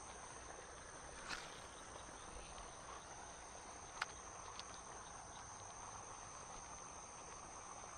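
Faint, steady, high-pitched insect chorus, with two soft clicks about a second in and again about four seconds in.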